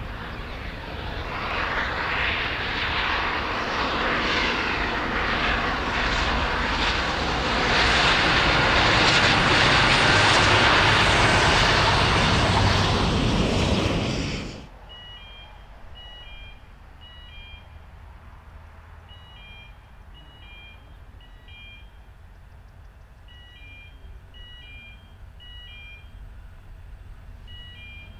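The Bathurst Bullet diesel passenger train passing close by, its engine and wheel noise building steadily and cutting off abruptly about halfway. Then quieter open-air background with short, high chirps repeated in pairs, typical of birds.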